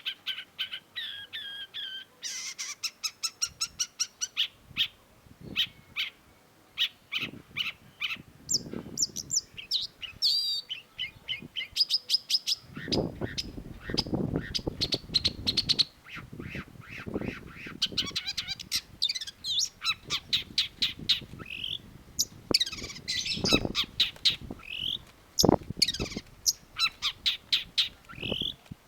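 Long-tailed shrike singing a fast, varied, chattering song of rapid clicking rattles, harsh notes and short whistles, with barely a pause. From about halfway in there is a low rumble underneath.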